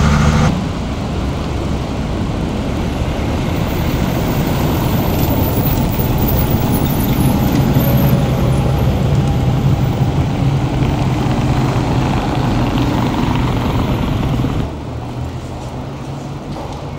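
Loud, steady city street noise from car traffic, with a low rumble. It drops to a quieter background about fifteen seconds in.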